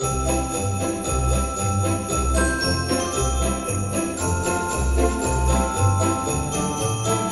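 Background music track cutting in suddenly, with jingle bells over a bass line.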